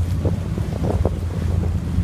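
Wind buffeting a phone's microphone aboard a boat in a steady low rumble, with water splashing against the hull in short bursts during the first second.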